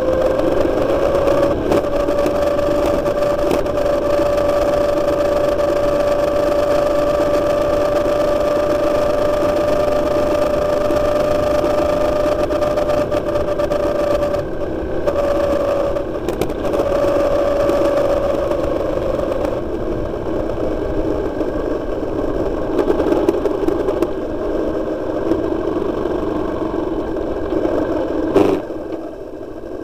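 Motorcycle engine running at a steady cruise, holding one pitch, then easing off about two-thirds of the way in as the bike slows. A single sharp knock near the end, after which it runs quieter.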